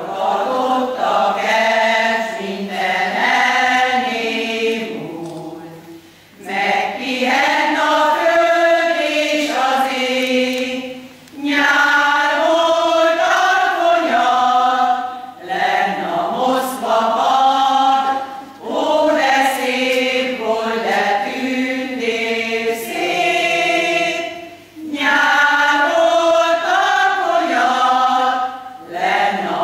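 A women's folk choir singing in unison and harmony, in phrases of four to five seconds with short breaks for breath between them.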